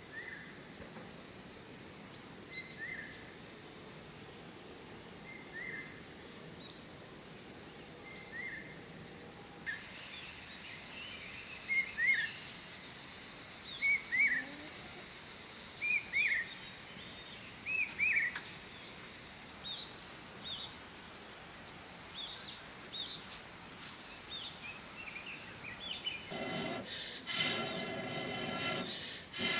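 A bird calling in short repeated chirps, single at first and then in quick pairs, about every two seconds, over a faint high steady whine that stops about a third of the way in. A louder, steadier noise joins in near the end.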